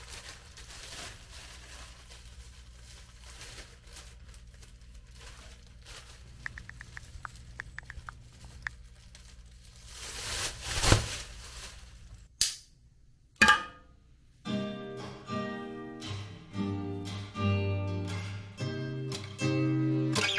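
Black plastic bin bag rustling and crinkling as it is handled and tied, with a louder crackle about eleven seconds in. About two-thirds of the way through, acoustic guitar music begins, plucked note by note.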